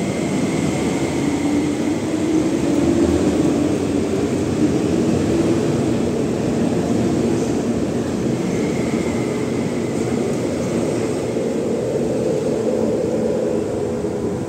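MTR Tuen Ma line electric train running, heard from on board: a steady rumble of wheels and running gear under a low motor hum that slowly drifts in pitch.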